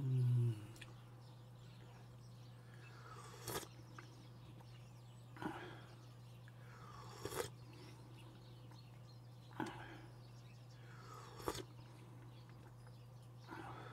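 Quiet eating sounds at the table: short mouth clicks and smacks about every two seconds over a steady low hum.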